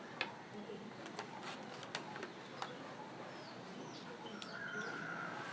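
A few faint clicks and taps from small parts being handled, with birds chirping in the background.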